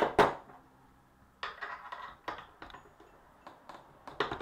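Socket ratchet and extension set down on a wooden workbench: two sharp metal knocks at the start. These are followed by lighter, irregular clicks and rattles of metal parts being handled.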